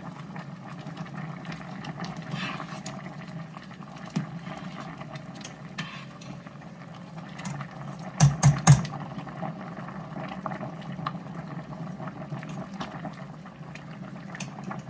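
A pot of chicken noodle soup at a rolling boil, bubbling steadily. About eight seconds in, a quick run of metal knocks as the ladle hits the steel pot.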